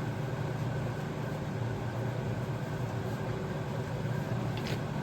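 Steady low hum of a kitchen appliance's fan or motor.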